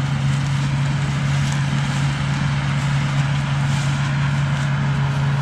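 Combine harvesting corn: engine and threshing machinery running steadily, with a strong low hum.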